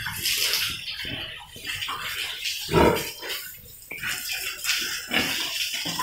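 Irregular splashing and running water on a wet concrete pig-pen floor, mixed with pigs grunting and snuffling; the loudest burst comes about three seconds in.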